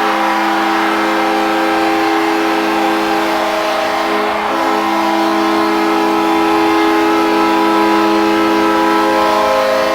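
Ice hockey arena goal horn blowing one long, steady, multi-note chord to signal a goal, cutting off near the end.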